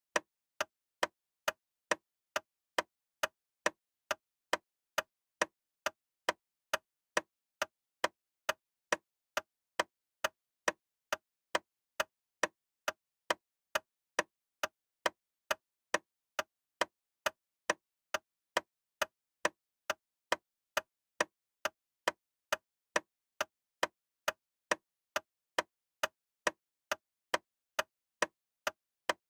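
A loud, sharp ticking that repeats evenly about twice a second, with dead silence between the ticks.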